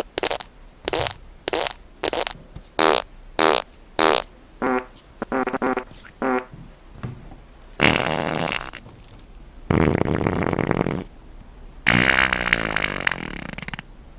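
Fart sound effects: a rapid run of about a dozen short farts, roughly two a second, then three longer, drawn-out farts, the last one falling in pitch.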